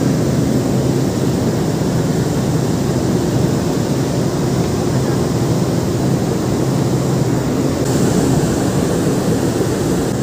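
Steady low rumble of wind and ship noise on the open deck of a ship underway at sea, with no clear individual events.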